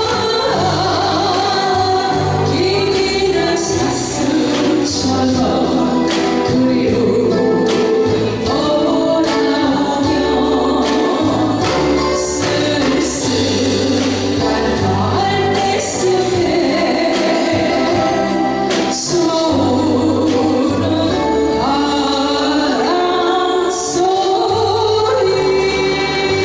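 A singer performing a slow Korean ballad with a live band backing: a steady bass-and-drum pattern under a sung melody.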